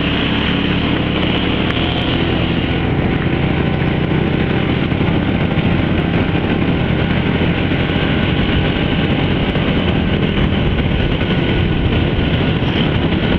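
Motorcycle riding steadily along a road: its engine running under a constant rush of wind over a handheld phone's microphone.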